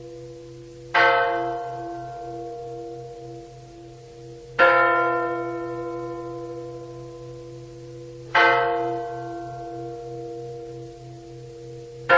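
A single large bell tolling slowly, struck three times about every four seconds, each strike ringing on and fading before the next, over a faint steady low hum.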